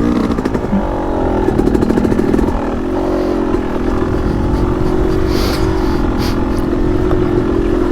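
Yamaha YZ250X's single-cylinder two-stroke engine being pop-started after a stall: it catches about a second in, revs up briefly, then settles into a steady low-rev run.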